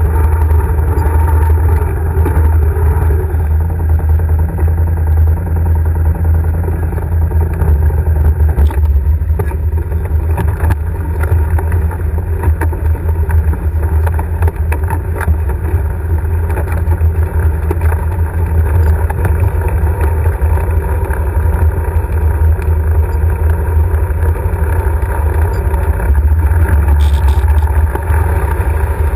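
Can-Am ATV's 1000 cc V-twin engine running steadily at trail speed, heard onboard, with scattered knocks and rattles as the quad crosses rough ground.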